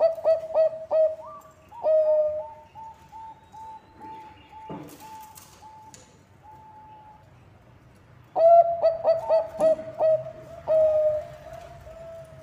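Bangkok perkutut (zebra dove) singing. It gives a loud phrase of quick staccato coos at the start and again about eight seconds in, with a run of softer, evenly spaced coos between.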